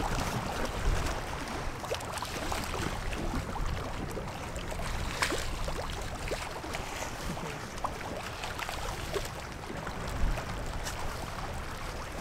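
Wind rumbling on the microphone over choppy lake water washing and splashing against a concrete shoreline wall, with a light click about five seconds in.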